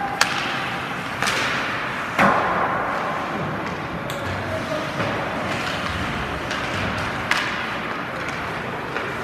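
Ice hockey play: sharp cracks of stick and puck impacts, the loudest about two seconds in and another near the end, over a steady hiss of rink noise.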